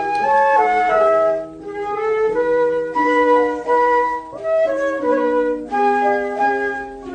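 Instrumental music interlude of a children's song: a flute-like melody of short held notes stepping up and down over a chordal backing, with no singing.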